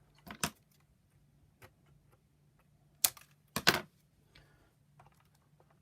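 A few sharp plastic clicks and snaps from handling vacuum power-nozzle parts, with a single click near the start and a louder cluster about three seconds in.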